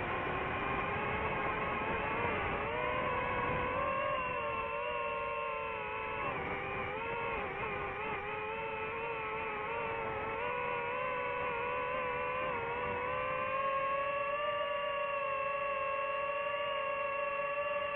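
DJI FPV quadcopter's motors and propellers whining steadily, several pitches drifting up and down as the throttle changes.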